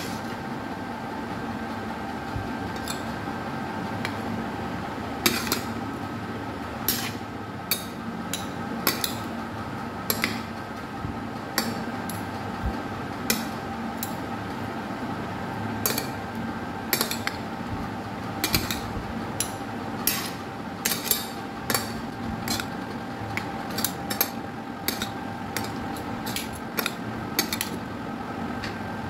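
Two metal spoons tossing a fruit salad on a plate, clinking and scraping against the plate in irregular sharp clicks. The clicks come more often in the second half, over a steady background hum.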